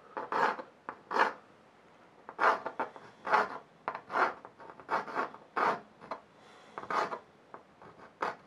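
Pencil scratching on drawing paper in short, quick strokes, about a dozen of them, roughly one a second, as vertical lines are sketched in.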